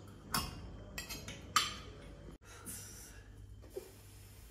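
Cutlery clinking against plates as people eat, a few sharp clinks in the first couple of seconds. The sound cuts off suddenly about two and a half seconds in, leaving faint room noise.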